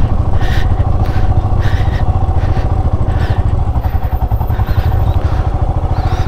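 Motorcycle engine running steadily, with a constant low, rapid pulsing and no revving.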